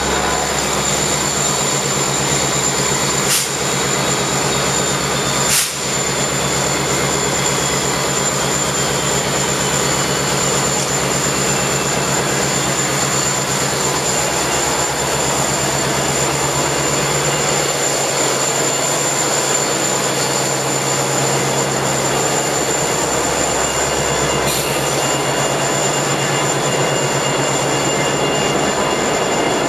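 Metra diesel-electric commuter locomotives standing at the platform with their engines running steadily, a low drone under a thin, steady high whine. Two sharp clicks come about three and six seconds in.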